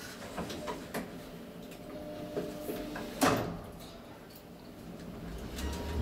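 Lift car of a Kone-modernized elevator: a few light clicks, then one loud clunk about three seconds in. A low rumble sets in near the end as the car starts to travel.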